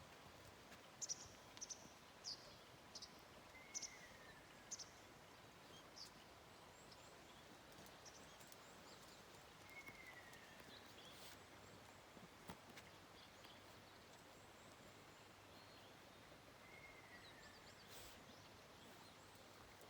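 Ruddy kingfisher calling three times, each call a falling trill of about a second, some seven seconds apart. Short high chirps from another small bird come in the first few seconds.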